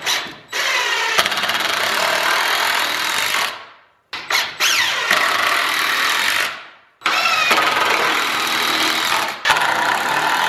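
Cordless impact driver drilling into a 2x4 in three runs of about three, two and a half and four and a half seconds, each stopping with a brief spin-down.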